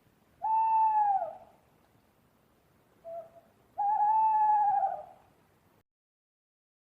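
An owl hooting: two long calls of about a second each, the first bending down in pitch at its end, with a short, softer note between them.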